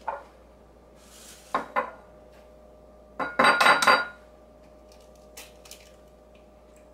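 Kitchenware clatter: a small ceramic bowl knocking and clattering onto a granite countertop for about a second, about three seconds in, with a brief ring. A few sharper knocks come before it and faint taps come near the end.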